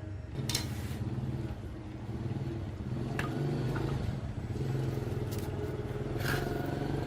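A motor running with a steady low hum, starting just after the beginning and cutting off sharply at the end, with a few light clicks over it.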